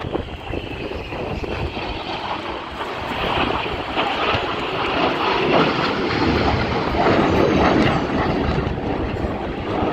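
A Red Arrows BAE Hawk T1 jet flying past and climbing away, its turbofan making a steady jet roar. A faint high whine slides down in pitch over the first few seconds, then the roar grows louder from about three seconds in and stays loud near the end.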